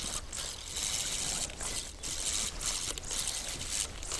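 Fishing line hissing steadily with short breaks as it is wound back from the distance-marker sticks onto the carp rod's reel.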